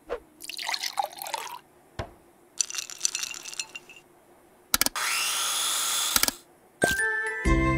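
Cartoon sound effects: a few short squishy, clattering effects, then an electric blender running loud and steady for about a second and a half, starting with a rising whine as it spins up before cutting off. Cheerful music comes in near the end.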